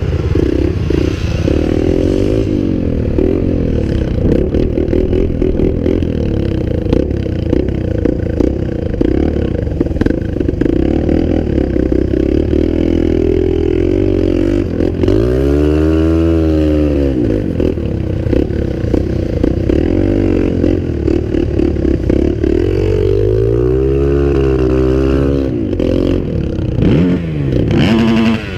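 Dirt bike engine running while being ridden, revving up and back down twice: once around the middle and again a little before the end.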